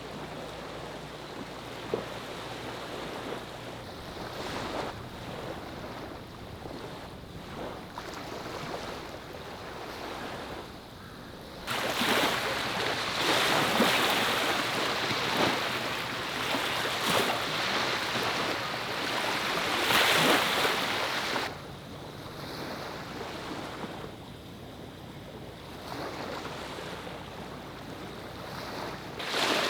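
Sea waves washing onto the shore. A louder rush of surf comes in about twelve seconds in and lasts around ten seconds, then drops back to a quieter wash, with another wave swelling near the end.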